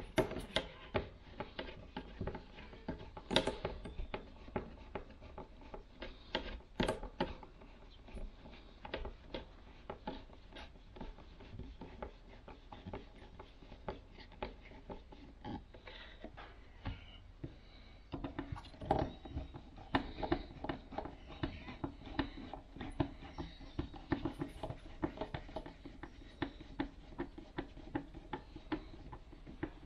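Hand screwdriver turning screws into a plastic electric hook-up inlet housing on a van's side panel: a steady run of small irregular clicks and scrapes, with a few sharper clicks.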